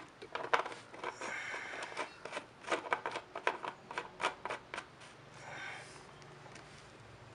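Plastic filler cap being screwed onto a brush cutter's fuel tank by hand: a quick run of sharp clicks and scrapes from the threads and fingers, then a short soft rustle about five seconds in.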